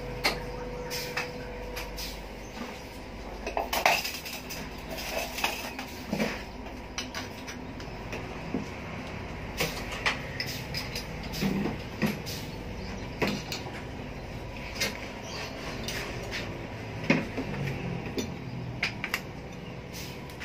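Metal clinks and knocks, scattered and uneven, from metal parts and tools in an exhaust-fabrication workshop, over a steady hum with a faint steady tone; the sharpest knocks come about four seconds in and near the end.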